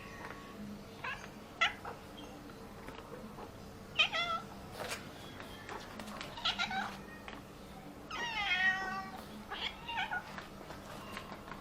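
Domestic cat meowing repeatedly, about six separate meows, with one longer drawn-out meow about two-thirds of the way through.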